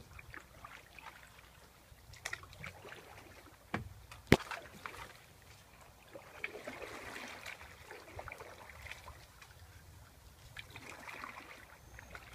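Canoe being paddled through calm water, with water trickling and dripping. Scattered light clicks and knocks run through it, the loudest a sharp knock a little over four seconds in.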